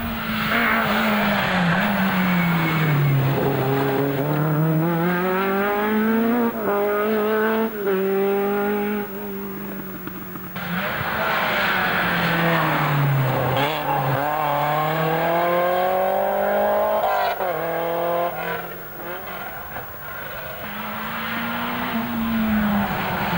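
Three rally cars going past in turn at full effort: each engine's pitch drops as the car slows for the bend, then climbs hard as it accelerates away, with gear changes breaking the climb. The second car is a BMW M3.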